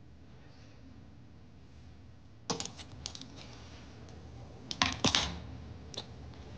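Handling noise of small objects: one sharp click about two and a half seconds in, a quick cluster of clicks and clatters near five seconds, and one more click just after, over faint room tone.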